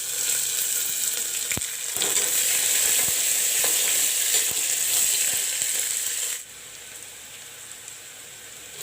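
Chopped onions frying in hot mustard oil with whole spices, sizzling loudly, with a few sharp clicks of a spoon stirring against the pan. About six seconds in the sizzle drops suddenly to a much quieter level.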